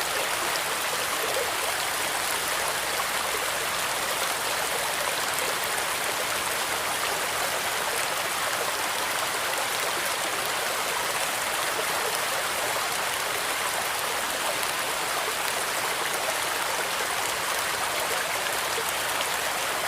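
Fish tank water running and trickling steadily, an even, unbroken splashing hiss.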